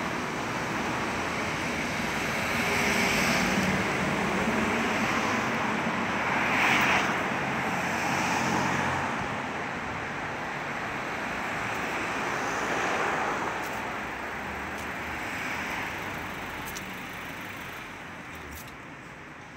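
Street traffic: cars passing with engine and tyre noise that swells and fades several times, growing quieter near the end.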